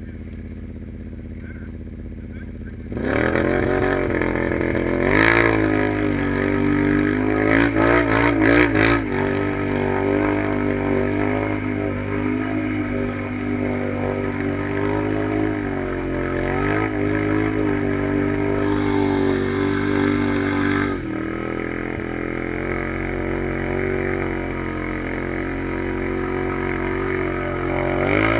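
Modded Kawasaki Brute Force 840 ATV's V-twin with dual Muzzy exhausts idling, then revved hard about three seconds in. The revs rise and fall several times, then are held high as the spinning tyres churn through a deep mud hole, easing off briefly about three quarters of the way through.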